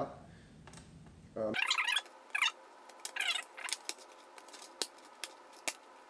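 Plastic scraping and clicking as a Dell Inspiron 15 3537's bottom access panel is unscrewed with a small Phillips screwdriver and pried off the case. A few sharp single clicks come near the end.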